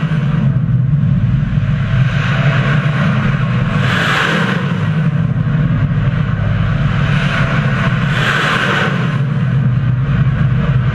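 Ship-launched Kalibr cruise missile lifting off: a loud, steady rocket roar from its booster, swelling twice with a louder hiss about four seconds apart.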